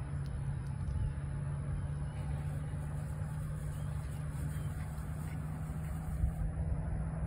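Steady low hum of a running motor or engine, holding one even pitch, over a low outdoor rumble.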